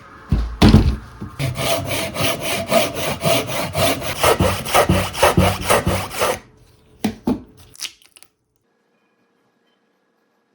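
Saw cutting through wood in quick, even back-and-forth strokes, about four a second, after a couple of louder knocks at the start. The sawing stops about six seconds in, and a few last strokes follow near eight seconds.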